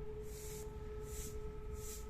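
A siren sounding one steady held tone, over a low rumble and soft hissy swells that come about every 0.7 s.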